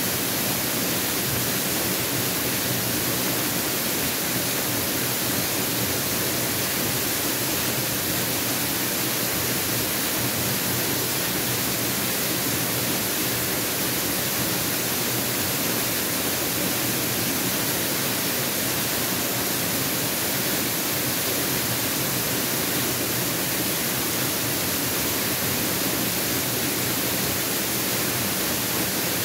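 Mountain waterfall rushing steadily, an even, unbroken roar of falling water.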